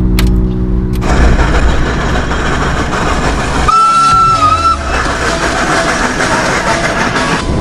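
Loud rushing road and wind noise from a vehicle driving at speed. About halfway through, a steam traction engine's whistle sounds one steady, high note for about a second.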